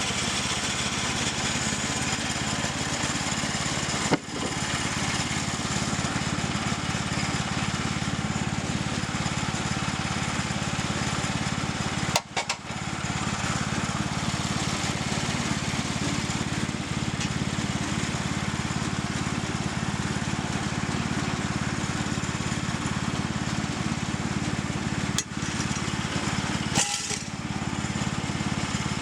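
Small gasoline engine of a saw mill running steadily under load, sawing logs into planks, with a few very short breaks in the sound.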